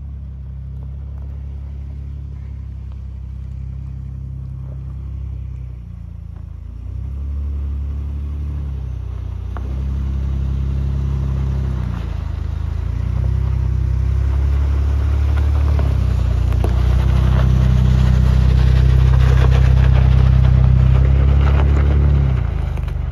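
Ford Bronco's engine pulling the truck up a dirt trail, its pitch rising and falling with the throttle and growing louder as the truck comes close. Gravel crackles under the tyres as it passes, and the sound drops away near the end as it drives off.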